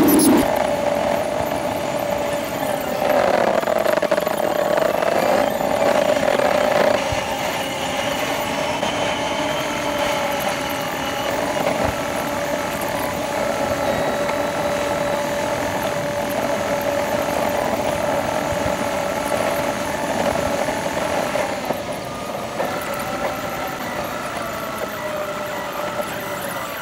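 Car engine and road noise picked up inside the cabin by a dashcam and played back at twenty times speed, so it comes out as a steady high whine that drifts up and down in pitch, over a rushing hiss.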